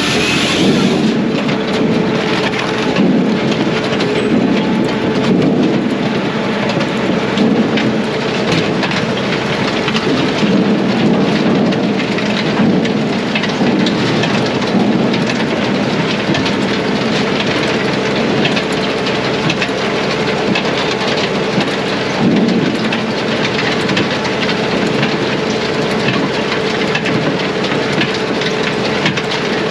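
Brute Force USA 18-24HD diesel firewood processor running steadily under a constant steady tone, with a dense continuous clatter of small knocks as wood is processed.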